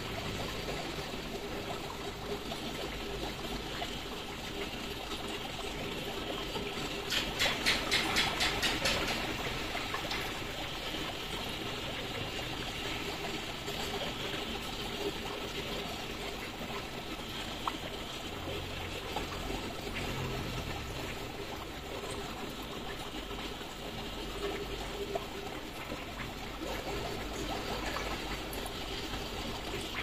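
Steady trickling of water in an aquarium. About a quarter of the way in, a short run of rapid, evenly spaced rattling pulses rises above it for a couple of seconds.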